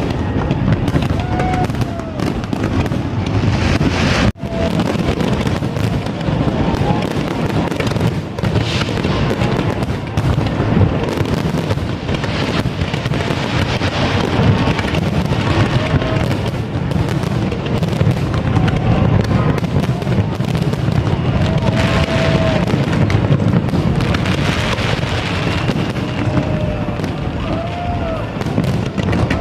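Fireworks display: a dense, unbroken run of bursts and booms over a heavy low rumble, with music and voices beneath. The sound cuts out for an instant about four seconds in.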